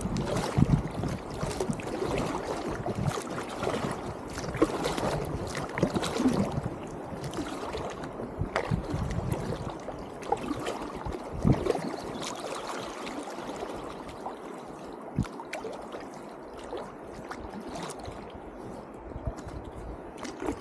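River water lapping and gurgling against an inflatable packraft, with paddle blades dipping in and scattered small splashes and knocks. It is busier in the first half and settles down later on slow water with no rapids.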